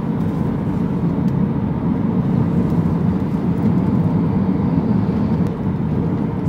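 Steady low rumble of a moving motor vehicle, even throughout with no distinct events.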